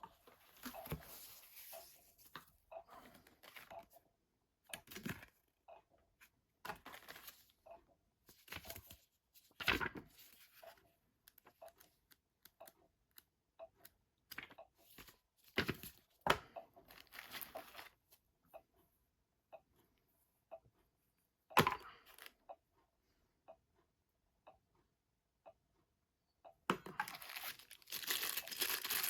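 Packaging being handled and opened: irregular rustling, crinkling and tearing of wrapping, broken by a few sharp clicks and knocks, with a longer stretch of crinkling near the end.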